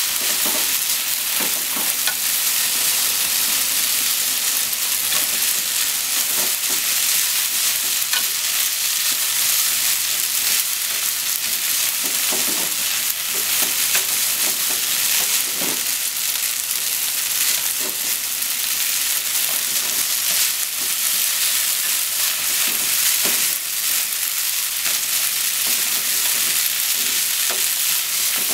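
Spaghetti and sliced Japanese leeks sizzling in a frying pan while being stir-fried with chopsticks: a steady frying hiss with irregular light knocks and scrapes as the chopsticks toss the noodles against the pan.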